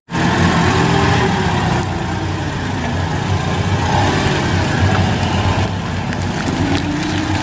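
Propane-fuelled Cat forklift engine running steadily as the truck drives and turns, its pitch drifting up and down a little.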